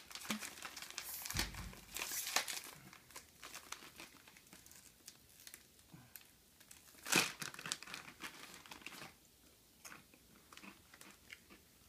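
Clear plastic snack bag crinkling and tearing as it is worked open by hand, in irregular rustles, heaviest in the first few seconds and once more about seven seconds in.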